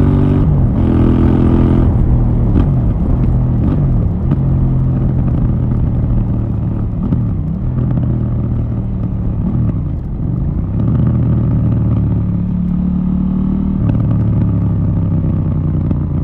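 KTM 790 Duke's parallel-twin engine through its stock Euro 4 exhaust, running with the revs repeatedly dipping and climbing back, then holding fairly steady for the last few seconds.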